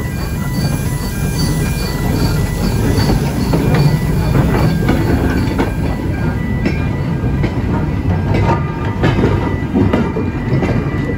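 A small steam tank locomotive hauling a short goods train of wooden wagons passes close by, with a steady low rumble and wheels clicking over the rail joints, the clicks coming thicker in the second half. A level crossing's pulsing warning tones beep over it.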